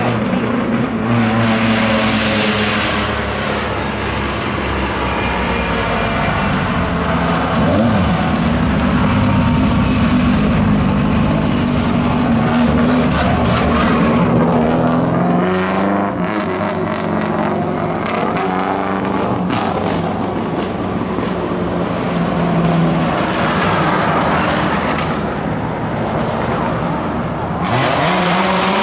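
Hill-climb race cars at full throttle, engine pitch climbing and dropping repeatedly as they go up through the gears on the climb.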